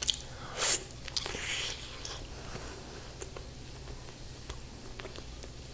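A person biting into and chewing cooked goat mutton: a few wet bites and smacks in the first second and a half, then quieter chewing with scattered small clicks.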